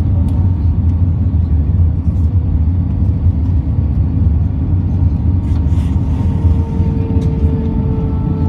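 Airliner cabin noise: a steady low rumble, joined by a faint steady tone about halfway through.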